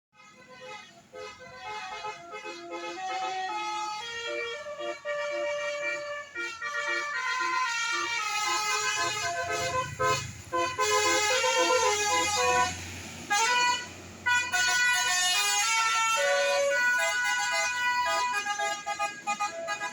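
Bus 'telolet' musical horn playing a string of short, stepping melodic notes, getting louder about halfway through. A bus engine's low rumble passes from about nine to thirteen seconds in.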